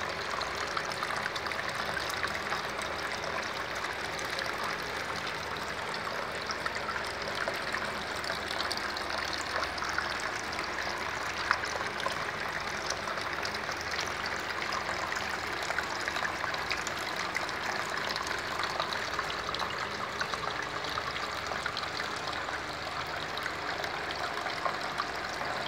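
Water trickling and splashing steadily in a homemade tabletop water fountain, a vortex swirling in a plastic kitchen container, with many small drips.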